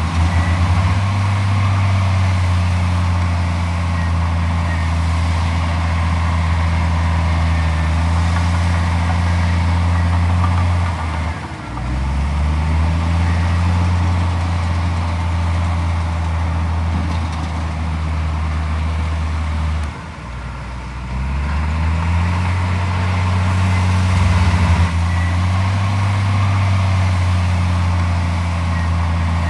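Heavy diesel engine of earthmoving equipment running steadily under throttle. Twice, about a third and two thirds of the way through, it drops off briefly and then revs back up, its pitch rising.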